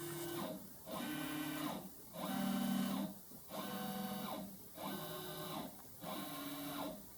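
ST Robotics 5-axis robot arm's stepper motors whining through a series of short jog moves, about one a second, each ramping up in pitch, holding, then ramping down as the arm steps down in 25 mm increments.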